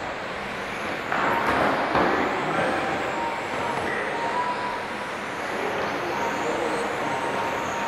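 Several 1:10-scale electric RC touring cars racing on carpet: high motor whines rising and falling in pitch over a steady hiss of tyres, louder for about a second early on as cars pass close.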